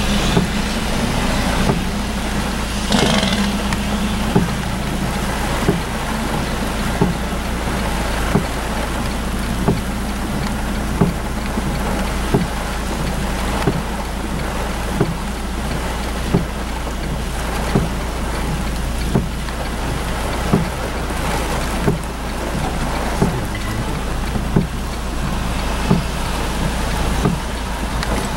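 Steady hiss of rain and vehicles driving through floodwater, with a soft knock repeating evenly about every second and a half.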